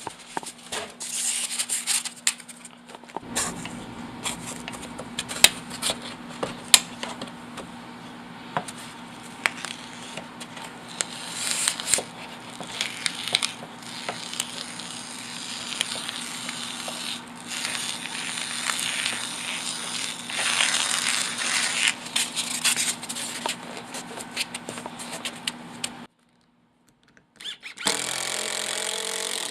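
Construction hand work on building materials: irregular scraping and rustling with many sharp clicks and knocks over a steady low hum. It cuts out abruptly near the end, then a steadier scraping noise starts.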